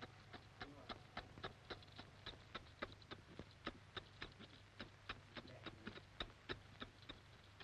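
Crackle and low hum of an old film soundtrack: faint sharp clicks, about three or four a second at uneven spacing, over a steady low hum.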